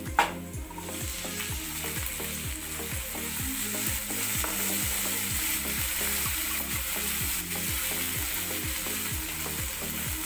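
Fresh green peas tipped into hot oil in a kadhai: a sharp hiss as they hit the oil, then steady sizzling as they are stirred with a wooden spatula.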